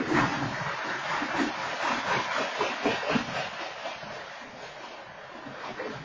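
BNSF train cars rolling past, a steady rumble and clatter of wheels on the rails that eases a little around four to five seconds in, heard through a home security camera's microphone.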